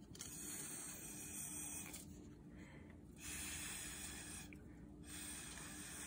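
Breath blown through a drinking straw onto wet acrylic paint, a soft airy hiss in three long puffs with short pauses for breath between them.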